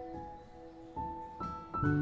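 Soft instrumental music: single melody notes that ring on and fade, coming one after another, with a fuller chord and bass entering near the end.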